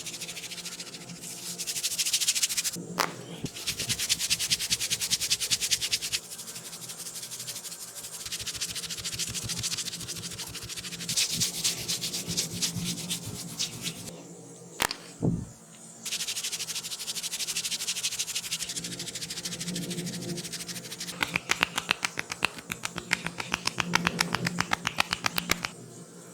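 Close-miked ASMR head-massage sounds cut together in short segments: fast, dense scratching and crackling that stops and starts abruptly, with a few single sharp clicks.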